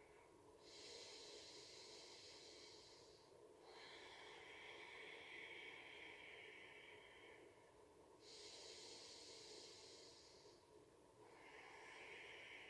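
Faint, slow breathing by a woman: long breaths in and out, about two full breath cycles, each lasting six to seven seconds, the hiss changing pitch between breathing in and breathing out.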